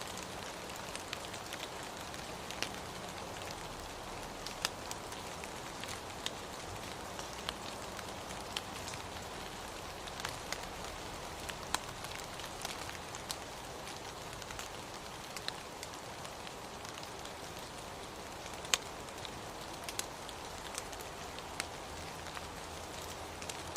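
Steady rain, an even hiss with many separate drops ticking sharply against a surface at irregular moments. One drop lands clearly louder than the rest past the middle.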